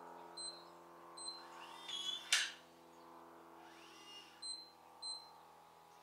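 Hugolog HU04 touchscreen smart deadbolt: short keypad beeps as a code is tapped in, then a brief rising motor whir ending in a sharp clunk about two seconds in as the deadbolt retracts. A fainter rising whir and two more beeps follow in the second half.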